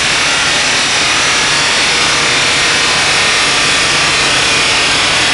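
Steady, loud rushing noise from the Bosch rolling road and its test bay, with no engine note: the run is over and the engine has come off the throttle.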